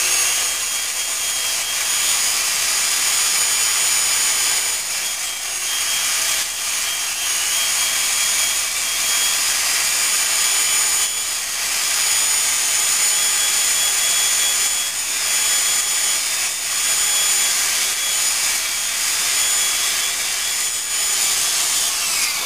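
Dremel rotary tool running at high speed, a steady high whine, as its bit grinds a slight taper onto the ends of short 4 mm carbon-fibre tubes. The motor winds down at the very end.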